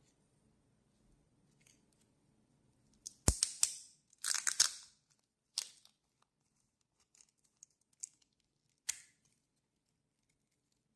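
Sharp clicks and short scrapes of small metal lighter parts being handled during repair of a Dunhill Rollagas lighter: a cluster of several about three to five seconds in, then a few single clicks spaced out after it.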